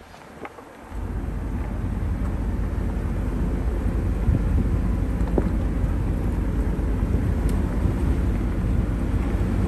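Recovery vehicle's engine starting to pull about a second in, a steady low rumble under load, with scattered clicks as the disabled truck is dragged.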